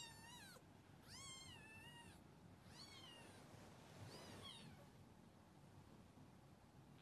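Kitten meowing, four faint high mews that each rise and fall in pitch over the first five seconds, the second the longest.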